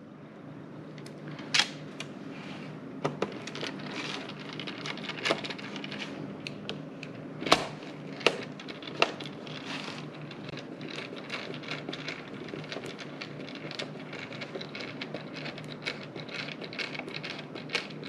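Small screwdriver and fingers clicking and scraping on a laptop's plastic bottom case while small screws are driven in, a string of irregular sharp clicks with a steady low hum underneath.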